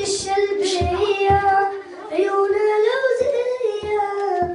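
A boy singing a slow melody into a handheld microphone, holding long notes that slide from one pitch to the next.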